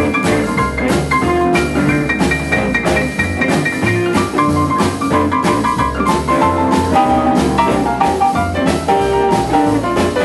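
Instrumental break in an up-tempo jump blues/rockabilly number: a hollow-body electric guitar plays lead lines over upright double bass and a steady drum-kit beat.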